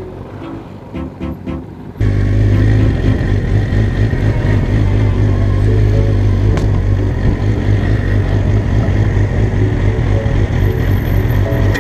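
Background music, then about two seconds in an abrupt cut to a motorcycle engine running steadily with road noise, the music still faintly underneath.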